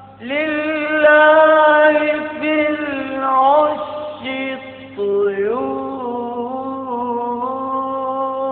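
Solo male voice singing an Egyptian Islamic ibtihal, drawing out long melismatic held notes with slow slides between pitches, over a steady low hum.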